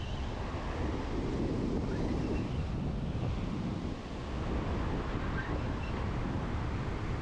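Strong wind buffeting the microphone, a steady low rumble, with beach surf breaking underneath.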